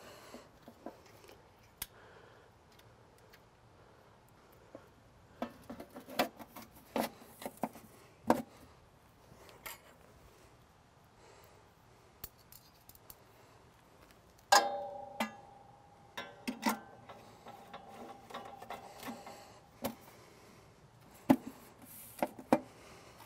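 Stainless steel hinge shroud being fitted back onto a kamado grill: scattered metal clicks, clinks and knocks, with one loud metal clank about fourteen seconds in that rings on for a couple of seconds.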